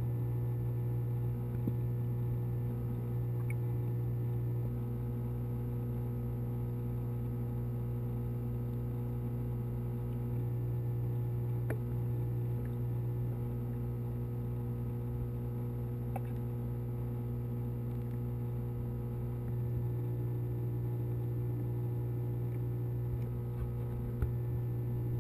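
Steady electrical hum of an aquarium pump: a strong low tone with several fainter higher tones, even in level, with a couple of faint ticks.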